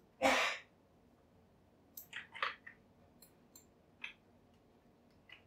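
Computer mouse and keyboard clicks: a scattered run of sharp clicks in the second half, including mouse-wheel scrolling. Just after the start comes a brief, louder puff of noise, the loudest sound here.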